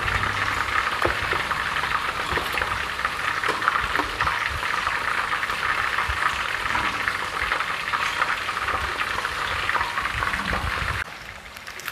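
Battered pieces deep-frying in hot oil in a frying pan, a steady, busy crackle and sizzle that cuts off sharply near the end.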